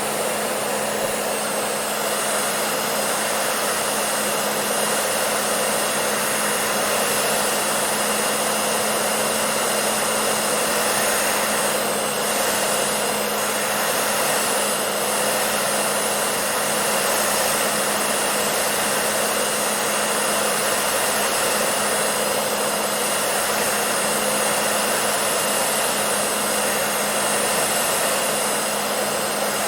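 Hair dryer running steadily: a constant rush of blown air over a steady low motor hum.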